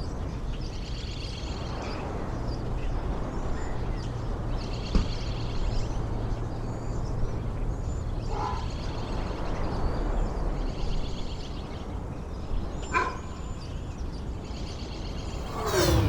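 Repeated high chirping animal calls over a steady low rumble, with a sweeping whoosh at the very end.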